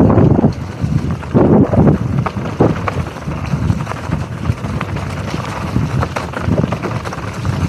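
Mountain bike riding fast down a dirt trail covered in dry leaves: wind buffets the camera microphone in gusts, loudest at the start and again after about a second and a half, over the tyres rolling on dirt and leaves. Frequent sharp clicks and rattles come from the bike as it goes over the rough ground.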